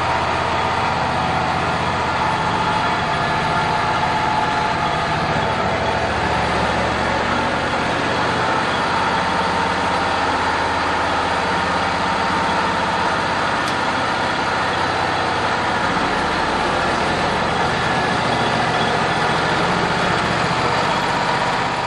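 Wood-Mizer horizontal band sawmill running steadily, its engine and band blade sawing along a 16-foot flitch to edge it.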